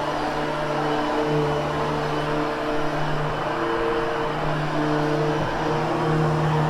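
Hoover HushTone vacuum cleaner running steadily on carpet. Its motor hum wavers slightly in pitch as it works.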